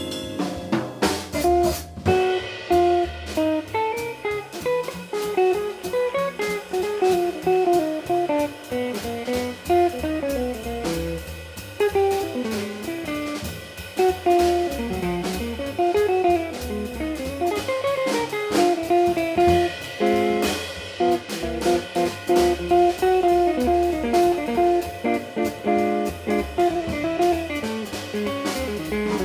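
Small jazz combo playing: an electric guitar solos in quick single-note lines, accompanied by upright bass and drum kit with cymbals.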